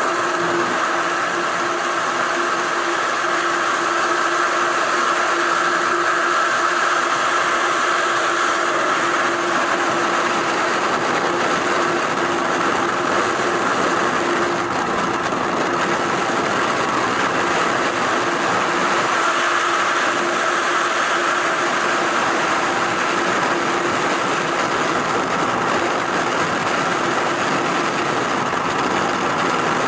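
Steady rushing roar of freefall wind over the camera's microphone during a tandem skydive.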